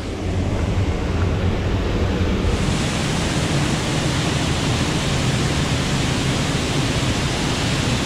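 Steady rushing roar of a waterfall pouring into a pool. About two and a half seconds in, the sound turns brighter and hissier.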